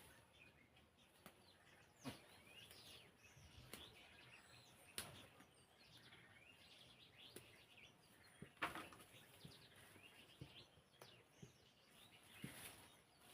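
Faint chirping of small birds, many short calls, with a few sharp clicks here and there.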